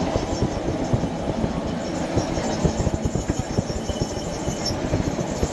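Car tyres rumbling and clattering over the steel deck of a truss bridge, heard from inside the car as a dense stream of irregular low knocks and rattles.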